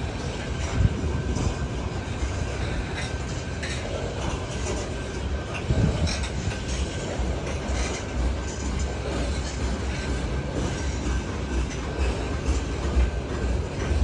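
A long freight train of grain hopper cars rolling past in a steady rumble, with clicks from the wheels passing over rail joints.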